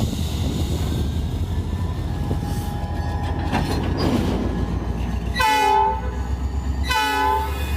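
EMD SD40-2 diesel locomotive's multi-note air horn sounding two short blasts, about five and a half and seven seconds in, over a steady low rumble.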